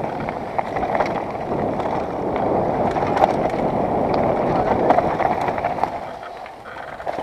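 Mountain bike running down a rough dirt and stone trail: tyres rolling and crunching over the ground, with scattered sharp knocks as the bike hits stones and bumps. It gets quieter about six seconds in.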